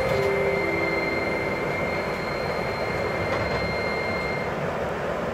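Electric commuter train (KRL) running steadily, with the even rumble and rush of the ride. A thin, high, steady whine sits over it and stops a little past four seconds in.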